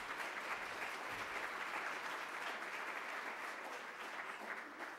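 Audience applauding: a steady patter of many hands clapping that eases off near the end.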